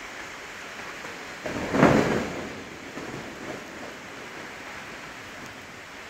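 Steady heavy rain, with a sudden crack of thunder about one and a half seconds in that peaks and then rumbles away over the next two seconds.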